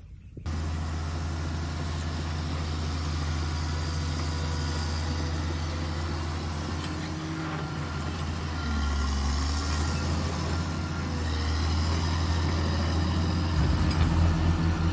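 Bulldozer's diesel engine running steadily under work, its note shifting with load about nine seconds in and again near the end.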